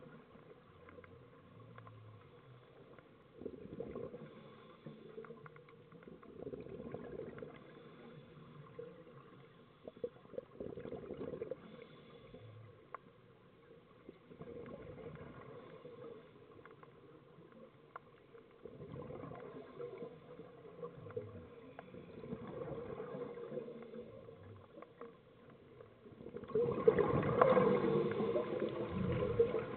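Scuba breathing heard underwater through a camera housing: swells of exhaled bubbles gurgling every few seconds, much louder near the end.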